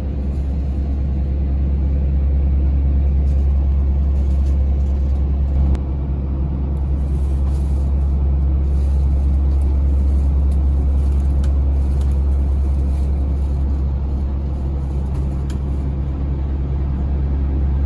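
Yui Rail (Okinawa Urban Monorail) train running between stations, heard from inside the car: a steady low rumble with a low hum.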